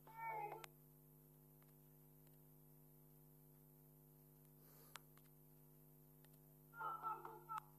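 Low steady electrical hum, near silence, with two brief, faint sounds of wavering pitch, one about half a second in and one near the end, and a single faint click in between.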